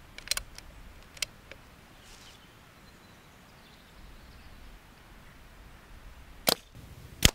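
Brocock Concept Lite pre-charged pneumatic air rifle being readied and fired: a few light mechanical clicks early on, then two sharp, loud cracks near the end, less than a second apart.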